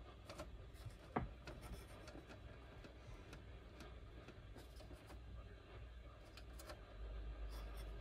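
Faint clicks of the push buttons on a Sage EAS ENDEC's front panel being pressed one after another, over a low steady hum; the sharpest click comes about a second in.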